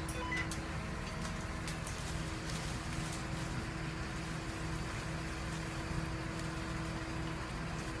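Crane's engine running steadily while lifting a cut tree section: an even low rumble with a constant hum and a few faint ticks over it.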